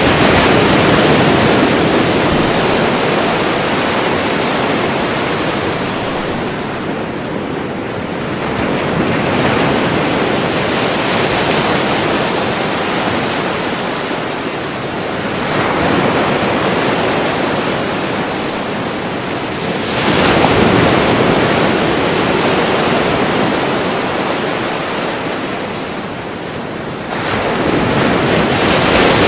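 Ocean waves breaking in continuous surf. A new wave surges in every five to seven seconds, and the sharpest break comes about two-thirds of the way through.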